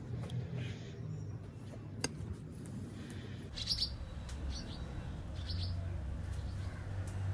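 Small birds chirping: a few short, high chirps in the second half, over a steady low hum.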